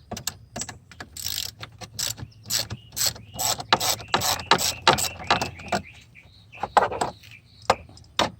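Hand socket ratchet clicking in short, irregular runs of strokes while a battery terminal clamp nut is loosened.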